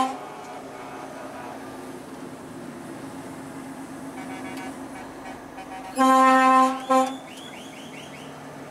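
Truck air horn sounding one long blast about six seconds in, then a short toot, over the steady drone of the truck running and road noise inside the cab.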